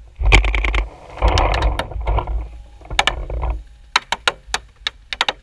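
Paintball markers firing: fast strings of pops in the first half, then single sharp cracks at uneven spacing near the end.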